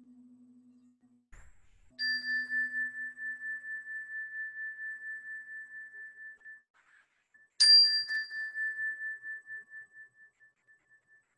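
A small metal chime is struck twice, about five and a half seconds apart, each strike a clear, high ringing tone with a slight waver that dies away slowly. A low hum fades out in the first second.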